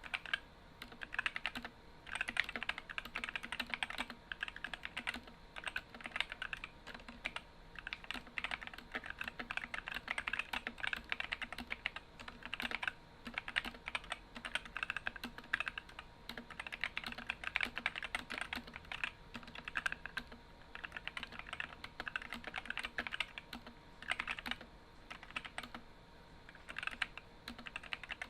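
Typing on an Epomaker SK64 mechanical keyboard with stock, unlubed Gateron optical red linear switches and ABS keycaps: a rapid, continuous patter of keystroke clacks with brief pauses.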